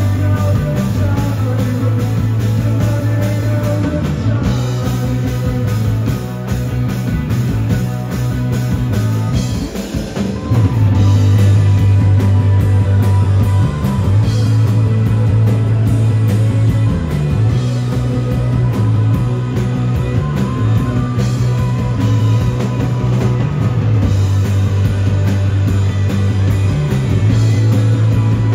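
Rock band playing live through a PA: electric guitars, electric bass and drum kit, with a strong, steady bass line under the drums. The band drops back briefly about ten seconds in, then comes back in at full volume.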